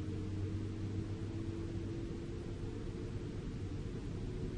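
Isuzu Giga FVZ self-loader truck driving at a steady speed, heard inside the cab: a steady low drone of the diesel engine and road noise.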